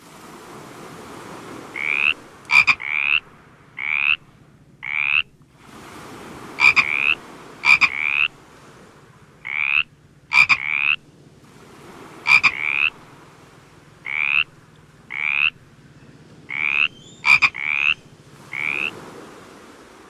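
Frog calling: a series of short, pulsed croaks, roughly one a second and often in pairs, each rising slightly in pitch, with a few sharp clicks among them.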